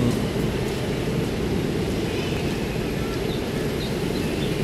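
Steady road traffic noise, an even low rumble with no single vehicle standing out.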